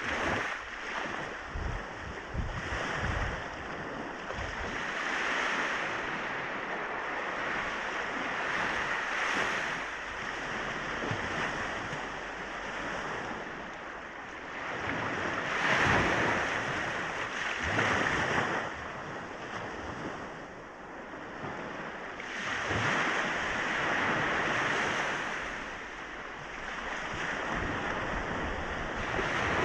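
Sea waves washing onto a beach, a steady wash of surf that swells and eases every few seconds as each wave breaks and runs up, with some wind on the microphone.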